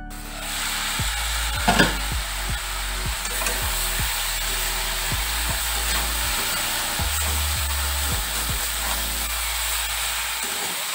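A flat spatula stirring and scraping a thick banana-flower and prawn mixture in a steel wok, with repeated knocks against the metal, over a steady frying sizzle. A louder knock comes about two seconds in.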